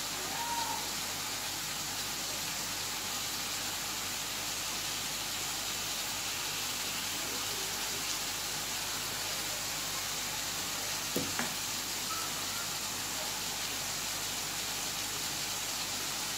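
Steady sizzling hiss of chopped radish greens cooking in a steel pan as they give off their water, with a single sharp click about eleven seconds in.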